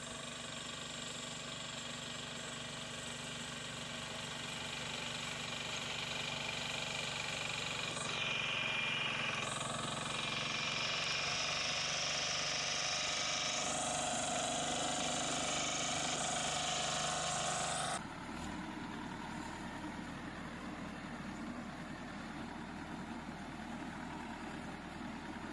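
Engine of machinery working a mini hay baler, running steadily. The sound changes abruptly about eight seconds in and again at about eighteen seconds.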